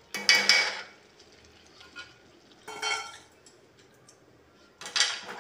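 Flat steel spatula scraping and clinking against a metal kadhai while stirring cooked okra: three short scrapes, about a second in, near the middle and at the end.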